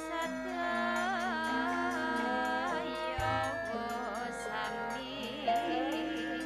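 Javanese gamelan music with a female sindhen singing a wavering, ornamented melody over the ensemble, a bowed rebab among the instruments. A deep gong stroke sounds about three seconds in and rings on.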